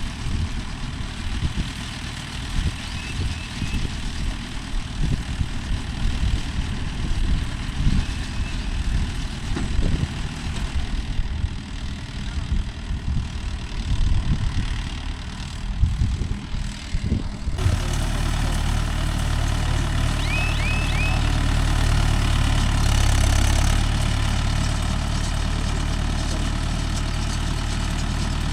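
Mahindra Yuvo Tech Plus 585 tractor engine running a Bharat baler, with irregular low knocking from the working machinery. About 17 seconds in the sound changes abruptly to a steady engine drone.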